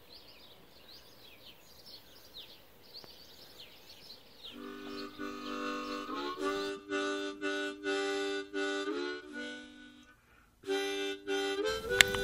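Background music: a harmonica playing held chords, coming in about four and a half seconds in and breaking off briefly near the end. Before it there are only faint, quick high chirps.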